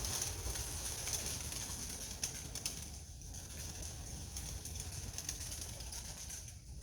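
Flock of young racing pigeons flapping their wings, a fluttering clatter with a couple of sharper wing claps about two and a half seconds in.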